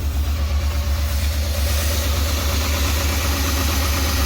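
2007 Lincoln Navigator's 5.4-litre V8 idling roughly, with an uneven low pulsing. The rough idle comes from faulty variable valve timing (VVT) solenoids, which set a P0022 camshaft timing code.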